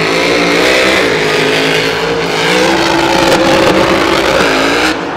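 Monster truck's supercharged V8 engine revving, its pitch climbing and dropping several times, then cutting off abruptly near the end.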